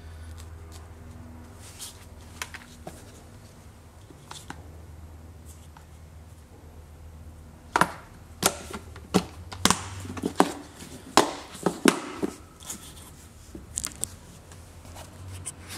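Hands handling a small hard plastic gun case: light clicks at first, then a run of sharp plastic clicks and knocks from about eight to twelve seconds in, as the lid is shut and the latches snapped closed.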